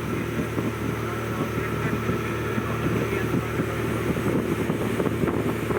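Motorboat engine running at a steady cruise, with wind buffeting the microphone; it cuts off suddenly at the end.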